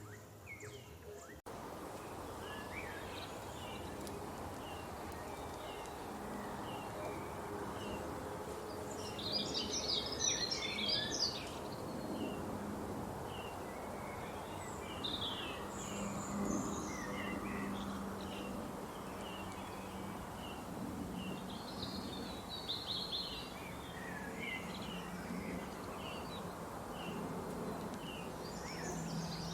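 Birds chirping in many short, repeated calls over a steady background hiss, with louder clusters of calls about a third of the way in, just past halfway, and near the end. The background hiss starts abruptly about a second in.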